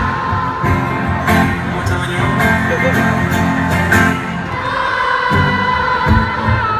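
Large concert audience singing in layered parts, the sections holding long sustained notes together like a choir, over strummed acoustic guitar.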